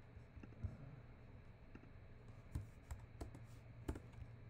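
A few scattered computer keyboard keystrokes and clicks, spaced irregularly, over a faint steady low hum.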